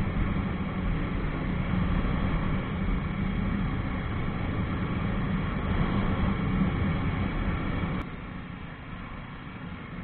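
Jawa 42 motorcycle's single-cylinder engine running under way with road and wind noise while riding. It turns suddenly quieter about eight seconds in.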